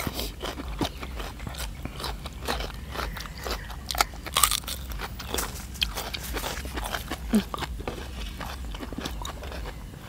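People chewing crisp raw vegetables, cucumber among them, close to the microphone: a steady run of small wet crunches, with a few louder bites a little before the middle.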